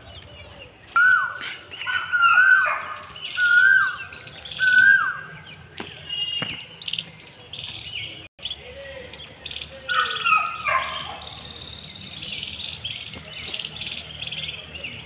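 Birds chirping, with a run of loud, clear whistled calls in the first five seconds, each holding a note and then dropping in pitch, and a few more around ten seconds in.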